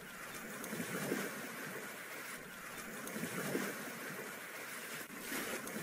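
Rushing sea and wind noise, swelling and easing irregularly every second or so.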